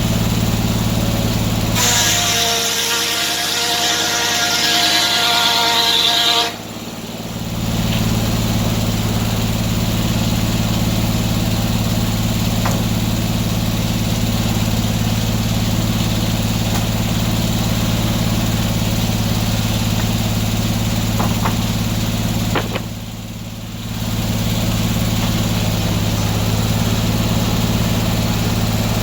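Antique sawmill's engine running steadily. From about two seconds in to about six, a high, many-pitched whine rises over it, then the sound dips briefly. It dips once more about two-thirds of the way through.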